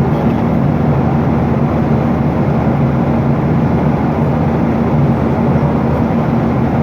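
Steady cabin noise of a jet airliner in flight: an even rushing sound with a low hum underneath.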